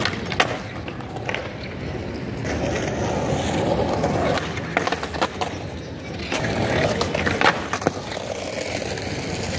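Skateboard wheels rolling over pavement, with the wooden deck clacking sharply against the ground several times as tricks are tried; two of the loudest clacks come close together near the end.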